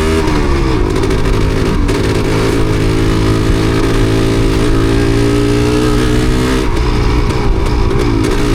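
Yamaha DT250MX single-cylinder two-stroke engine running at low revs; the revs drop just after the start, then hold fairly steady before wavering unevenly in the second half. It is misfiring, which the rider puts down to water on the spark plug.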